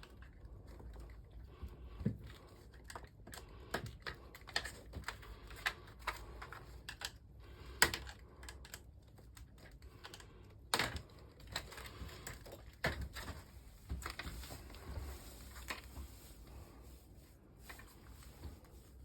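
Irregular light clicks and knocks of hard objects being handled, with a couple of sharper knocks about eight and eleven seconds in.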